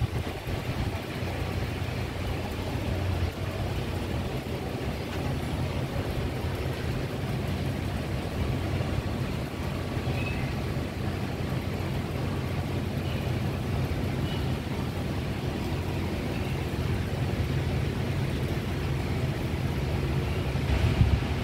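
Steady low rumble of urban background noise, with no single event standing out.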